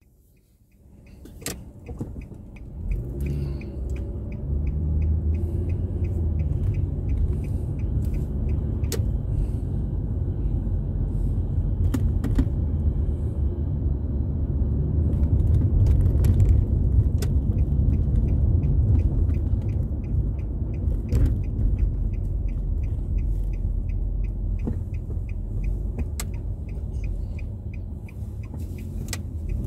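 A car driving, heard from inside: a steady low rumble of engine and road noise that fades in over the first few seconds. A regular light ticking runs through the first half, with a few sharp clicks.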